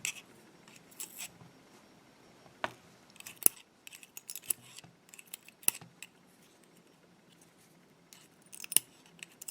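Scattered small metallic clicks and taps: a tool working the pin springs out of a dimple lock cylinder's pin chambers, metal on metal. The clicks come irregularly, with a quick cluster near the end.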